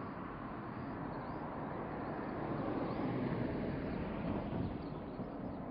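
Steady outdoor background rumble with no clear tones, easing off slightly near the end.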